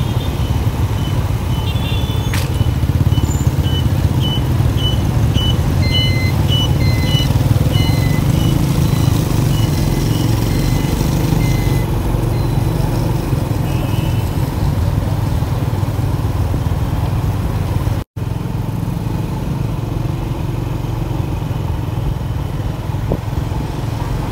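Motorbike traffic heard from a moving motorbike: a steady low rumble of engines, wind and road noise. A short high beep repeats about twice a second through the first ten seconds or so, and the sound cuts out for an instant near the end.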